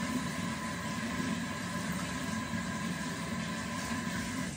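Tap water running steadily into a bathroom sink while a reusable makeup-remover pad is rinsed under it, cut off suddenly near the end.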